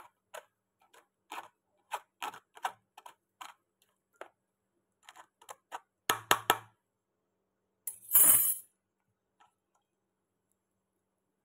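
Wooden spoon pressing and scraping ground crab-leg paste against a plastic mesh strainer: a run of small irregular clicks and taps, a louder cluster of knocks about six seconds in, and a short harsh scrape a couple of seconds later.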